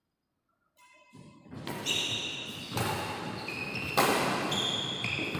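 Badminton rally in a large, echoing hall: sneakers squeak on the court floor and rackets strike the shuttlecock. The sound starts about a second in, and two sharp hits come about a second and a half apart.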